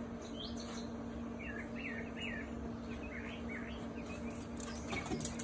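Songbird chirping in short, repeated curved phrases over a steady low hum. A quick patter of clicks comes near the end.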